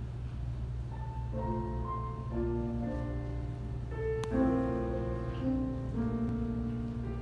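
Slow instrumental introduction of held notes, entering about a second in and moving in a gentle melody over a steady low hum, with a single sharp click a little past the middle.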